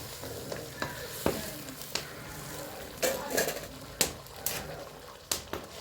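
Kitchen clatter: irregular knocks and clicks of pots and utensils being handled, over a low steady hiss.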